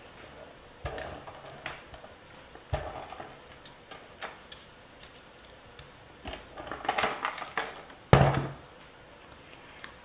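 Paper and scissors being handled at a craft table: scattered paper crinkles and clicks, a quick run of scissor snips about seven seconds in, then a louder knock a little after eight seconds.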